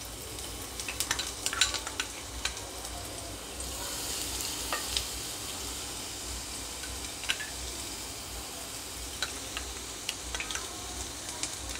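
Crushed ginger and garlic sizzling in hot oil with mustard seeds in a nonstick kadhai: a steady frying hiss with scattered sharp pops, and a steel spoon stirring partway through.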